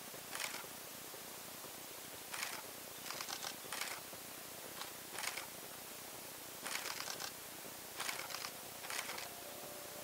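Camera shutters firing in short bursts of rapid clicks, a burst every second or two, over a steady hiss.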